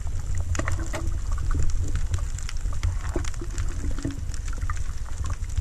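Underwater sound through a camera housing: a steady low rumble with many scattered sharp clicks and crackles.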